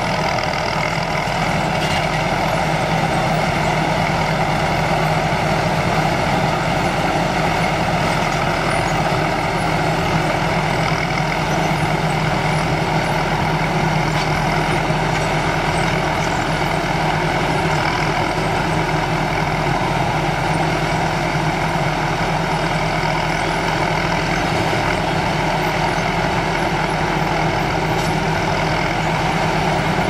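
Tracked rice combine harvester running steadily under load as it cuts and threshes rice: its engine and threshing machinery make an even, unbroken hum with several held tones.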